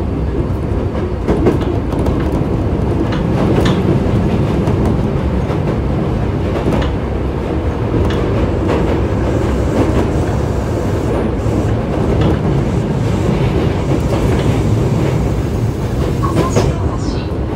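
Osaka Metro 24 series subway train with Hitachi IGBT-VVVF drive running at speed between stations, heard from inside the car: a steady rumble of wheels on rail with scattered clicks over rail joints. A few short high whines slide down in pitch near the end.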